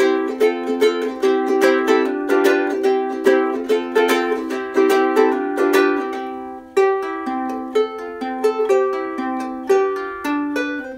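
Ukulele strummed in a steady rhythm, its chords ringing and decaying between strokes, with a brief pause about seven seconds in. It is recorded through an iPhone 7 Plus's built-in microphone from about 3 to 4 feet away, with some room sound.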